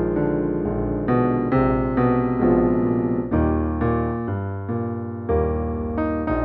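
Background piano music: a steady melody with notes or chords struck about twice a second, each ringing and fading before the next.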